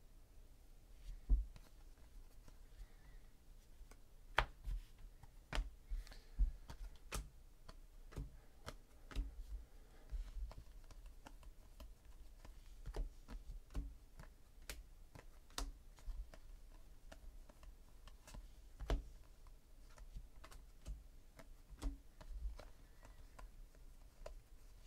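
Panini Classics football cards being flipped through by hand, one card slid off the stack at a time. Each card gives a light click, irregularly, about one to two a second, with soft low bumps of handling.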